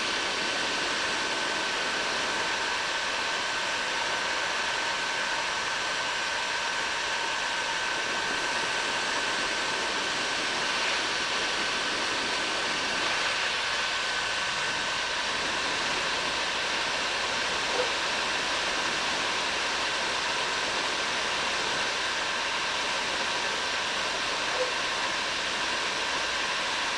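Bauer heat gun running steadily on high, a constant rush of blown air with a thin high motor whine, heating a copper pipe joint that is not yet hot enough to melt the solder.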